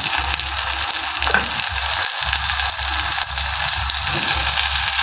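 Onions and freshly added tomatoes sizzling steadily in hot cooking oil in a pan, over a steady low hum.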